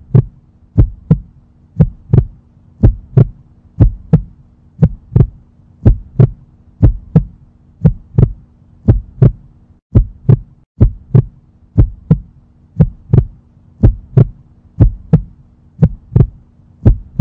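Heartbeat sound effect: paired low thumps in a lub-dub rhythm, about one pair a second, over a steady low hum.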